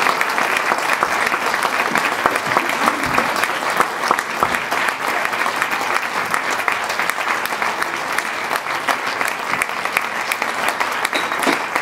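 Audience applauding at a steady level, many hands clapping at once.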